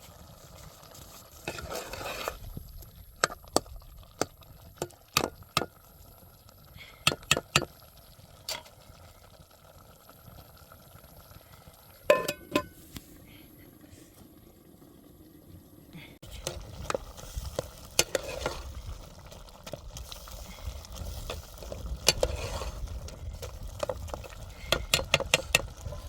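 A utensil stirring in a cooking pot and knocking against it: scattered sharp clinks in the first half, then a steadier scraping stir with quick repeated clinks past the middle.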